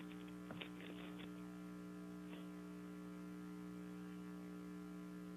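Faint steady electrical hum from the hearing room's microphone and sound system, with a few light taps and rustles in the first second or so as a framed photograph is handled near the microphone.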